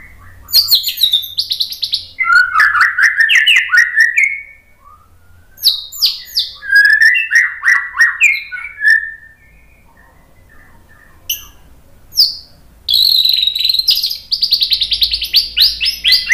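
White-rumped shama (murai batu) singing loudly in long bursts of varied song: quick whistled notes, sharp clicks and fast rattling trills. Short pauses fall between the bursts, and a single note comes just before the last burst, which is a fast, even trill.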